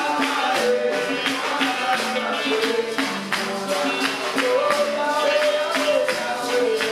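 Live church worship music: a congregation singing with hand clapping and a tambourine struck and shaken to a steady beat.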